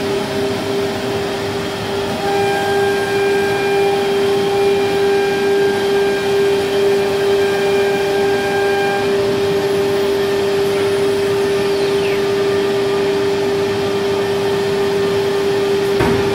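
Nesting CNC router running: a steady whine from its HSD spindle over the rushing noise of the dust collection and vacuum system. Extra higher tones come and go between about two and nine seconds in, and there is a short click near the end.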